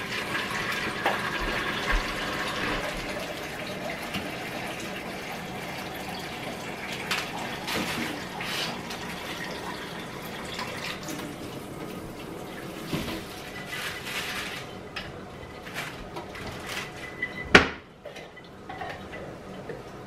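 Water running from a kitchen tap into a container being filled, with a few light clicks. A sharp knock comes near the end, after which the water sound drops away.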